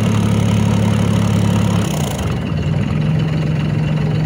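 Lifeboat's diesel engine running steadily in ahead propulsion, driving its ducted propeller. About two seconds in, its note changes and settles at a new steady pitch.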